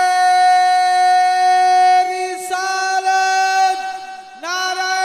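A man's voice singing long, held chanted notes, with two short breaks between them, amplified through a microphone and loudspeakers.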